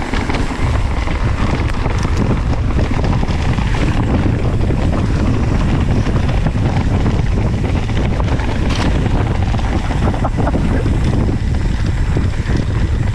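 Wind buffeting the microphone of a mountain bike descending at speed, over the rolling of knobby tyres on a leaf-covered dirt trail, with a few knocks from the bike about nine and ten seconds in.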